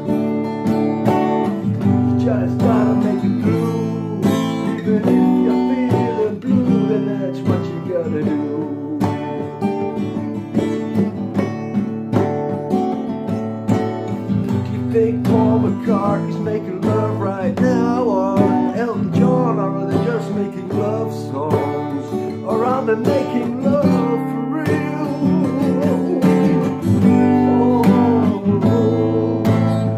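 Acoustic guitar strummed steadily: an instrumental stretch of music.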